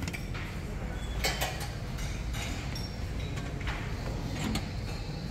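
Dining-room ambience at a buffet: a steady low rumble with scattered clinks and knocks of crockery and cutlery.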